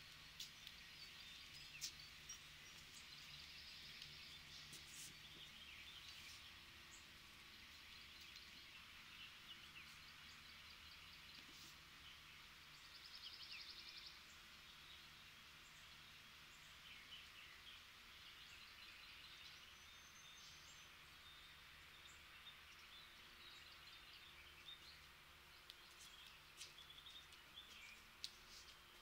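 Faint outdoor ambience: small birds chirping and trilling over a steady high hiss, with a buzzy trill about halfway through and a few faint clicks.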